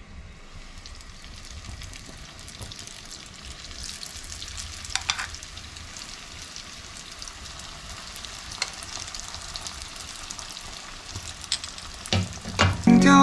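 Spring rolls deep-frying in hot oil in a pan: a steady sizzle that grows a little louder about four seconds in. Metal tongs click against the pan near the end.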